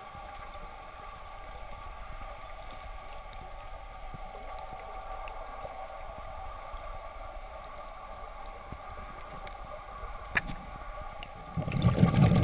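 Underwater ambience picked up by a submerged camera: a steady muffled hum with several held tones, a single click about ten seconds in, and louder low rumbling near the end.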